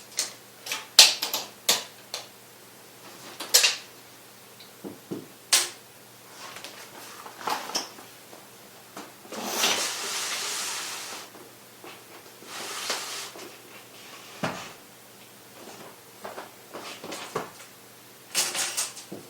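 Hands measuring and cutting magnetic glazing strip: a run of sharp clicks and snips, with a rasping noise of about two seconds near the middle and a shorter one a few seconds later.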